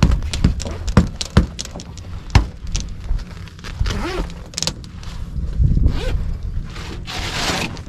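Fabric soft top of an SUV being unfastened and handled by hand. A quick run of sharp clicks and snaps comes first, then the fabric rustles, and a scratchy, hissing pull comes near the end.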